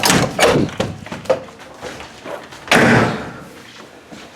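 A door being worked: a run of clicks and knocks from the lock and handle, then a loud door slam about three seconds in.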